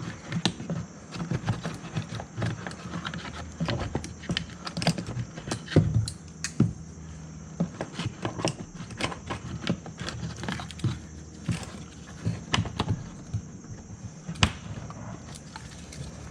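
Irregular small clicks and taps of plastic and metal, several a second at times: fingers and needle-nose pliers working inside a car door to hook the handle's release-cable hook onto a new inner door handle.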